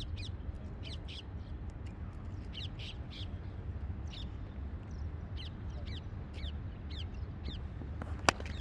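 Birds chirping over and over in short high calls, over a steady low rumble. Near the end a single sharp crack of a cricket bat striking the ball.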